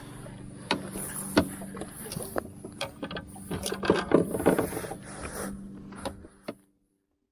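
Small boat's motor humming steadily, with scattered knocks and clatter in the hull, then the sound cuts off suddenly near the end.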